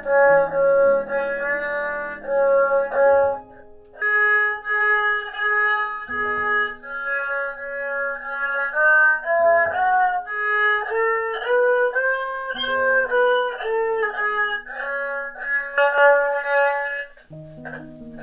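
Erhu, the Chinese two-stringed bowed fiddle, playing a slow melody of long held notes, with a brief break a few seconds in.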